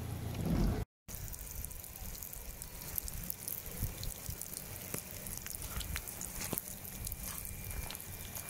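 Rain falling onto shallow muddy flash-flood water running over the ground, with many small drop splashes over a low rumble. In the first second a louder low rumble cuts off abruptly before the water sound takes over.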